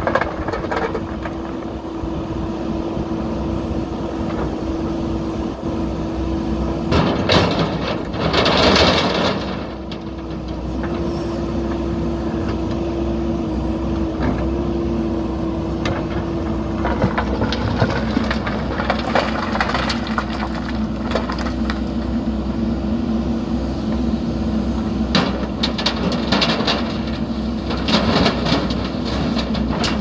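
JCB 3DX backhoe loader's diesel engine running steadily under load while its bucket digs into a pile of stones. There is a loud rushing clatter about eight seconds in, and scattered knocks of rock later on.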